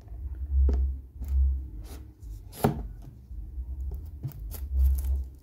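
Knife cutting through the plastic shrink-wrap on a cardboard box, with a few sharp clicks and low bumps from the box being handled.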